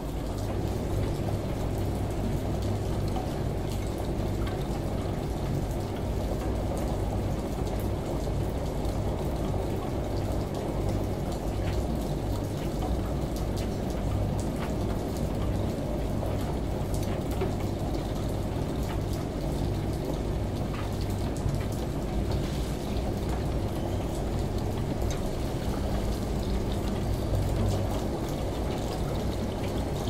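Washing machine droning with a low steady hum, layered with the hiss of a running shower and rain pattering outside, in an even, unchanging mix.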